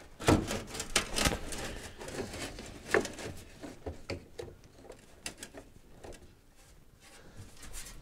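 Irregular knocks, clicks and rubbing of parts being handled. The loudest knocks come just after the start and about three seconds in, followed by lighter ticks that die down.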